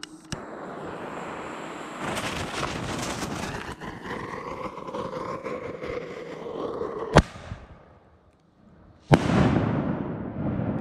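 Unbranded consumer artillery salute shells going off: two sharp bangs about two seconds apart, the second followed by a long rolling echo. Before them there is a steady noise of wind on the microphone.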